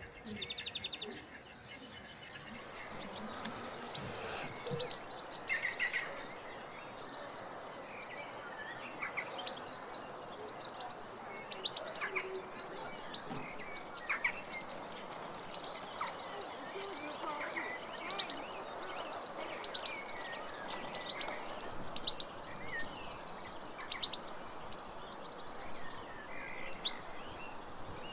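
Wild birds chirping and singing: many short, high chirps and trills from several birds over a steady background hiss.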